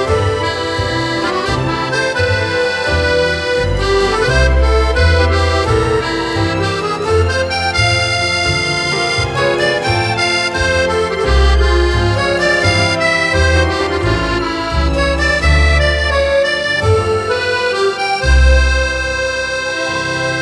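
Instrumental music with sustained melodic notes over a bass line that moves note by note; the texture changes near the end.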